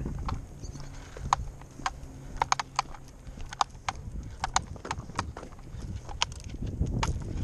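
Footsteps of a dog and its walker on a tarmac path: sharp, irregular clicks, about two a second, over a low steady hum.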